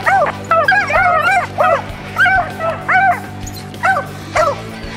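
Beagles baying on the chase, a string of short yelping calls that rise and fall in pitch, some overlapping, about a dozen over the stretch. It is the hounds giving tongue as they run a snowshoe hare's track.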